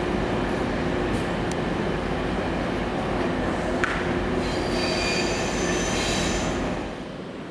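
Class 56 diesel locomotive's Ruston-Paxman V16 engine running as the locomotive moves slowly, with high-pitched wheel squeal starting about halfway through. The whole sound drops away shortly before the end.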